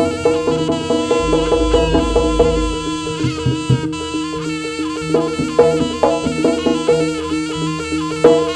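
Live jaranan ensemble music: a reedy, wavering melody, typical of the slompret shawm, over drums and steady sustained gong-chime tones, with a regular beat of percussion strokes.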